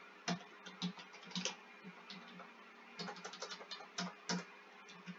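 Faint clicking of computer keyboard keys, typed in short irregular runs, busiest about three seconds in.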